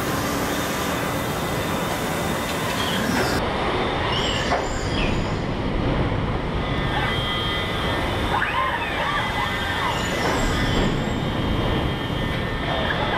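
Steady machinery din of a car body-shop assembly line, with industrial robots and conveyors running and a few short high squeals about two-thirds of the way through.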